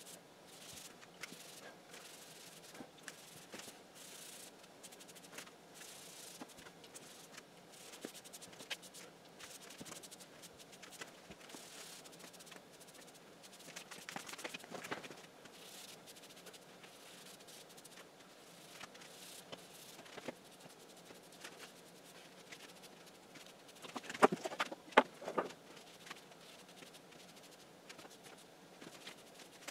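Faint rubbing and scuffing of a gauze pad wiping tung-oil finish onto an oak tabletop, with scattered soft taps. A few sharper knocks come about two-thirds of the way through.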